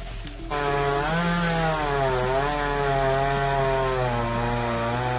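Chainsaw running hard while cutting wood, coming in loudly about half a second in, its engine pitch sagging and recovering several times as it works.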